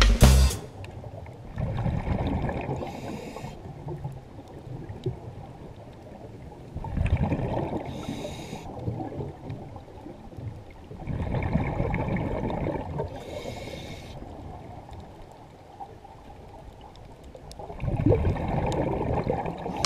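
Scuba diver breathing through a regulator underwater, heard from close by: long bubbling exhales and short hissing breaths, in a slow cycle repeating about every five seconds.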